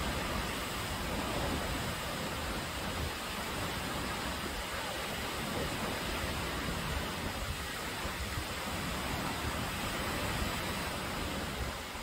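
Steady roar of a large waterfall close by: a dense, even rush of falling water that does not change.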